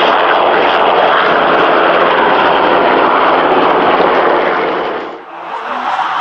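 Loud, steady aircraft engine noise from a low flypast. It dips briefly about five seconds in, then comes back.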